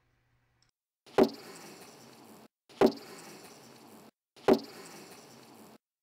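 Recording of a knock on a honeybee hive followed by the colony's hiss, played three times about a second and a half apart. Each time a sharp knock comes first, then a hiss of about a second that cuts off abruptly. The short, sharp, high-pitched hiss is taken as the sign of a colony in a non-swarm condition.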